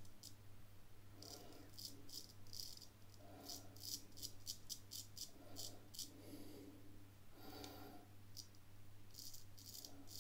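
A Drew Dick 8/8 smiling-blade straight razor scraping lathered stubble on the neck, going against the grain. It makes faint, crisp rasping scratches in short clustered strokes.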